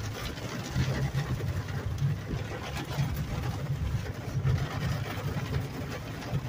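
Car cabin noise while driving in rain: a steady low engine and road rumble with an even hiss over it.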